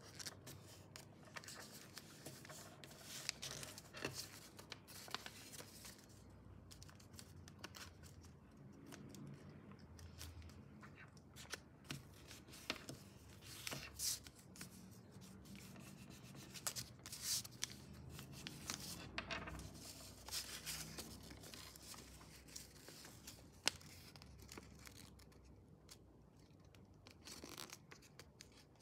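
A sheet of paper being folded and creased by hand on a tabletop: soft rubbing and crinkling, with scattered sharp crackles as the folds are pressed flat.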